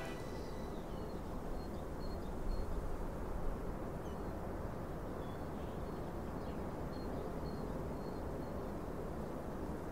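Outdoor ambience: a steady low rumble, with a small bird giving short high chirps now and then.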